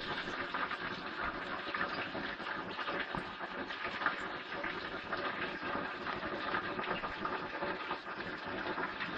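Steady crackling sizzle of hot frying oil as pan-softened onion and pepper are tipped out of the frying pan through a mesh strainer to drain off the oil.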